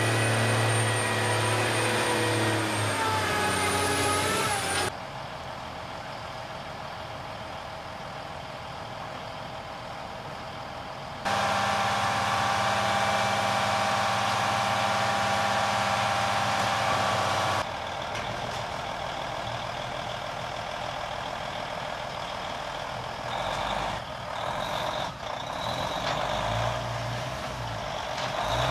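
Heavy diesel tractor-unit engine working a loaded truck through deep mud, its pitch rising and falling with the revs. Several separate takes are cut together, so the sound changes abruptly about 5, 11 and 18 seconds in.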